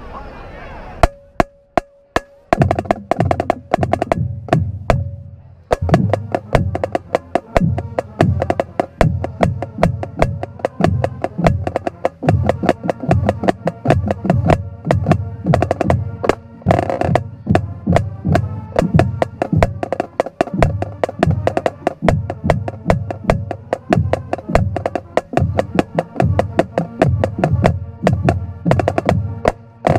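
Marching band drum line playing a cadence in a steady, dense beat, with strong low drum hits, close to the microphone. It opens with a few sharp clicks about a second in before the drumming starts.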